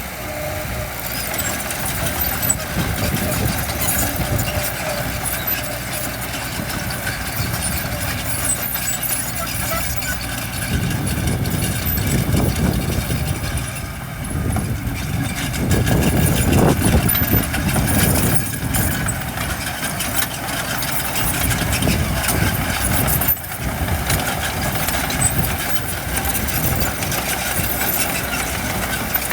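Heavy construction-machinery diesel engines running steadily, growing louder for several seconds around the middle.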